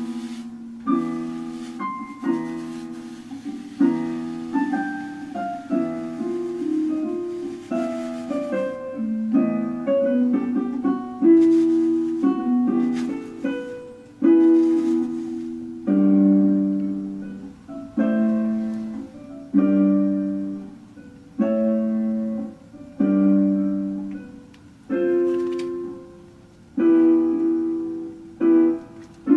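Keyboard music with a piano sound. It plays moving chords and melody notes at first, then from about halfway settles into slow chords struck about every one and a half seconds, each left to ring and fade.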